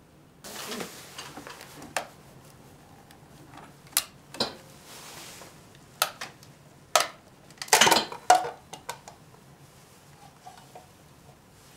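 Small metal pan and utensil handled by hand, giving a series of sharp metallic clinks and clanks with some scraping; the loudest cluster comes about eight seconds in.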